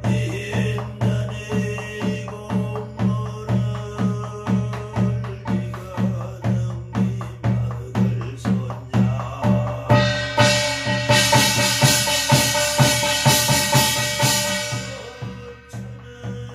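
Korean barrel drum (buk) struck with a stick in a steady beat of about two strokes a second, keeping time for a shaman's gosa prayer chant. About ten seconds in, a brass gong rings bright and loud over the drum for about five seconds, then fades.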